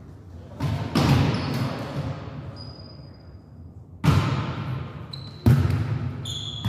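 A volleyball being struck during a rally in a gymnasium: four sharp slaps of hands and forearms on the ball, the first two close together about half a second in and two more after four seconds, each echoing through the hall. Short high squeaks of sneakers on the court floor come between the hits.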